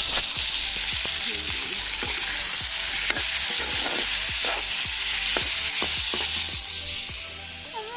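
Meat sizzling as it fries in oil in a kadai, stirred with sharp scraping knocks of the utensil against the pan roughly twice a second. The sizzle drops a little near the end.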